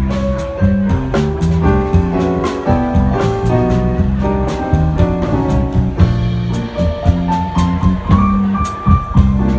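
Live jazz combo playing an instrumental passage: an electric bass walks under keyboard chords, and a drum kit keeps time with regular cymbal strokes. Toward the end a single-note melodic line climbs above the band.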